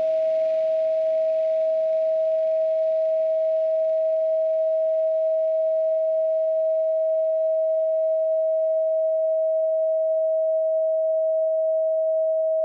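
A steady pure sine tone at 639 Hz, held at one pitch and level. Soft ambient music underneath fades away over the first ten seconds, leaving the tone alone.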